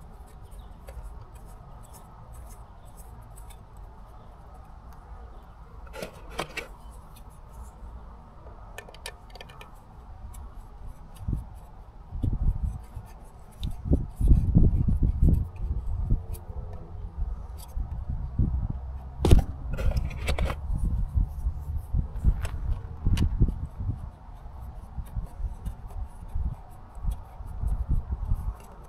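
Cellular antennas being screwed by hand onto a Peplink router's threaded antenna connectors: small metallic clicks and rubbing scrapes as each one is turned finger-tight. From about twelve seconds in, dull handling bumps from the router being held and turned are the loudest sounds.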